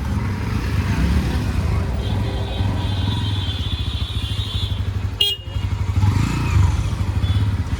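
Motorcycle engine running with a steady pulsing rumble, with a high tone held for a couple of seconds early on and a brief click just past the middle.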